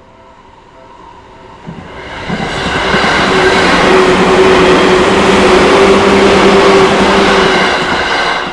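Seibu Kokubunji Line electric train passing close by the level crossing: the noise swells over about two seconds, stays loud with a steady motor hum under the rolling noise, then drops off sharply near the end.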